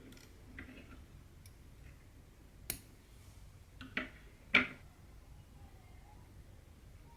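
Cross-stitching by hand: a needle pierces taut Aida fabric and cotton thread is drawn through it, giving a few short ticks and pops. The loudest comes about four and a half seconds in.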